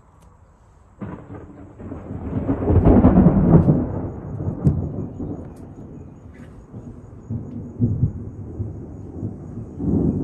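A clap of thunder that breaks suddenly about a second in, swells to a loud peak, then goes on rumbling and rolling in waves, with another swell of rumble near the end.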